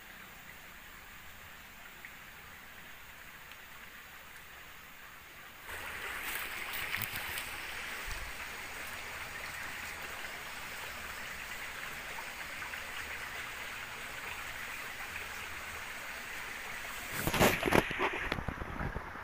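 Faint steady hiss, then from about six seconds in a forest stream running steadily. Near the end a short burst of loud knocks and clatter rises over the water.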